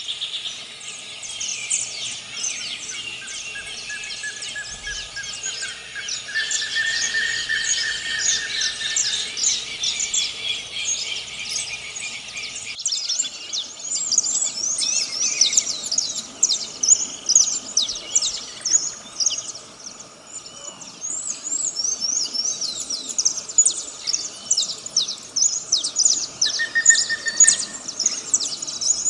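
Dense chorus of many birds chirping: rapid, overlapping high chirps and short slurred notes, with the mix changing abruptly once about halfway through. A steady high note runs for several seconds early on and returns briefly near the end.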